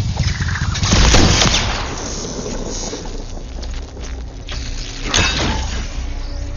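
Action-film battle sound: scattered gunfire with two loud bangs, one about a second in and one about five seconds in, over a low rumble.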